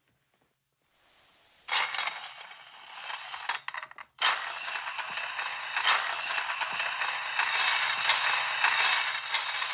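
Miniature porcelain tea set rattling and clinking on its tray as it is pushed across a hard floor on a long-handled broom. There is a continuous jittery rattle full of sharp clinks, starting about two seconds in, with a brief break around the four-second mark.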